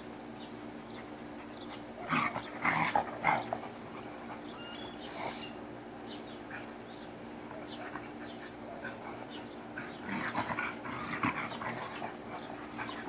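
Two dogs play-fighting and growling, in two short noisy bouts: one about two seconds in and another about ten seconds in.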